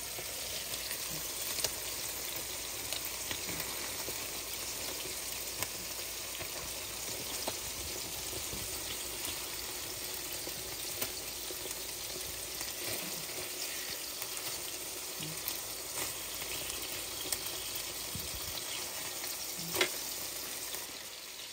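Beef burger patties sizzling steadily in oil on an electric griddle, with a few light clicks and scrapes of a slotted spatula pressing and turning them.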